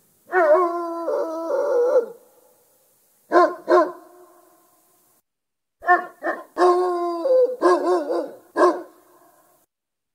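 Great Dane barking and howling: a drawn-out howl that wavers in pitch, then two short barks, and a little later a quick pair of barks followed by more wavering howls broken up by single barks.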